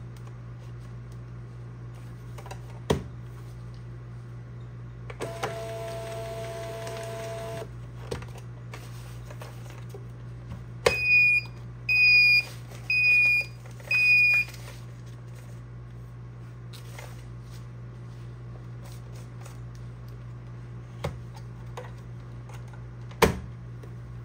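Thermal label printer working: its feed motor runs with a steady two-tone whine for about two and a half seconds, then four short high beeps sound about a second apart while its lid is open, and near the end a sharp click as the lid is pressed shut, all over a steady low hum.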